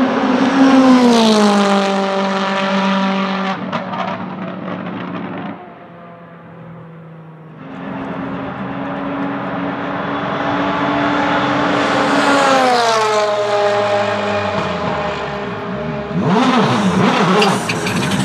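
Volvo S60 TC1 race cars with turbocharged 1.6-litre four-cylinder engines driving past, the engine note dropping in pitch as each car goes by. The first passes about a second in; after a quieter gap, another approaches at a steady engine speed and drops in pitch as it passes about two-thirds of the way through; near the end the revs rise and fall.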